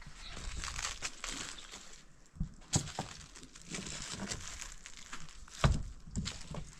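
Rustling and crunching of handled material, with scattered clicks and a couple of sharper knocks, about three seconds in and near the end.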